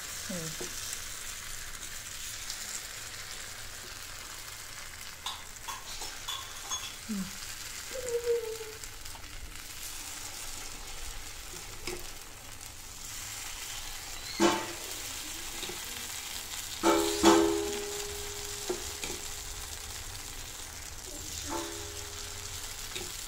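Batter sizzling in hot ghee in the cups of a paniyaram pan as it is spooned in, with a few sharp clinks of a steel ladle against the metal that ring briefly. The loudest clinks come a little past halfway.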